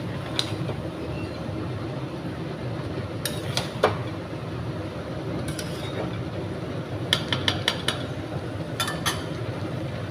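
A metal utensil clinking and scraping against a cooking pan while stirring chicken liver and gizzards frying down in spice paste, over a steady low background hiss. The clinks come in scattered groups, with a quick run of about five a little past the middle.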